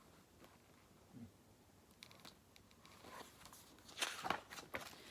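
Faint rustling and handling of a picture book's paper pages as a page is turned, with several soft taps and rustles near the end.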